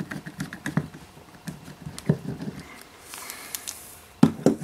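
A small screwdriver backing a flat-head screw out of a metal box lid: a run of small clicks and scrapes, thick at first and then sparse. Near the end come a few sharp knocks, the loudest sounds here.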